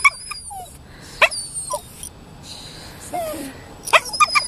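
Toy poodle whining in high, squeaky cries and short sharp yips, the squeaking that sounds like a dolphin, with a quick run of cries near the end. The whining is the dog's fear of ducks.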